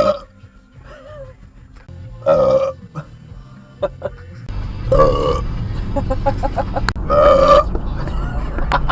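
A person belching loudly four times, each burp short and pitched, a couple of seconds apart. From about halfway through, the low rumble of the moving car runs underneath.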